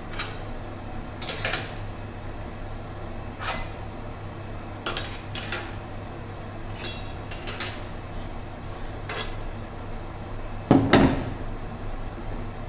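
Stainless steel clinking and clanking as a steel pot and the fittings of a still's open boiler are handled: a series of light metal clinks a second or so apart, then a louder clank about eleven seconds in, over a steady low hum.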